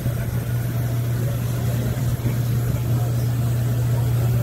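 Steady low hum of machinery from the standing Canadian Pacific Hudson steam locomotive 2816, with no rhythm or change in pitch, and faint crowd voices under it.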